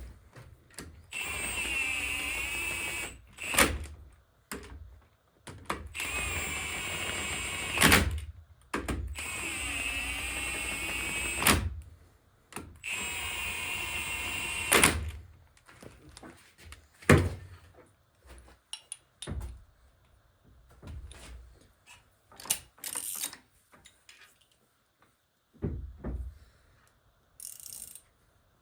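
Power drill running in four bursts of two to three seconds each, its pitch dipping briefly under load, with sharp clicks between them. After that come scattered knocks and clinks of tools and parts.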